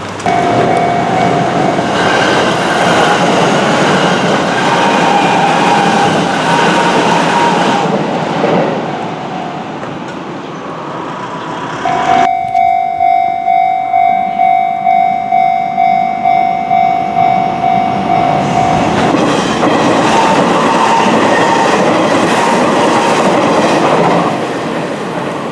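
Hanshin Railway trains running past at a ground-level crossing: one train goes by loudly during the first eight seconds or so, and another during the last six. In between, the crossing's warning bell rings clearly in even, pitched strokes about twice a second, and it can still be heard faintly under the trains.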